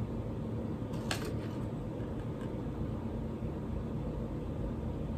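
Steady low hum of room tone, like a fan or air conditioner running, with a brief sharp click about a second in.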